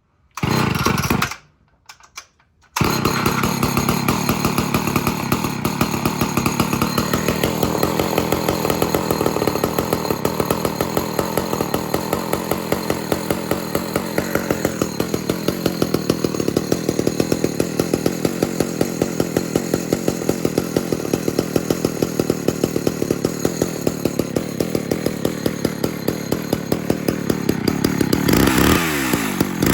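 Homelite Super XL two-stroke chainsaw cold-started on half choke: a short burst under a second in and a smaller one around two seconds, then it catches about three seconds in and runs steadily. It runs louder near the end.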